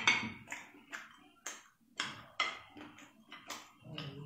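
Close-up chewing of spicy mini octopus: a run of irregular wet mouth clicks and smacks, about one every half second.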